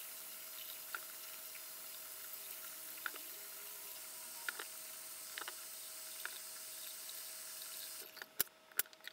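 Faint steady background hum with about five soft, irregularly spaced knocks, apples being set down one by one on a wooden cutting board. Near the end it drops almost to silence with a few small clicks.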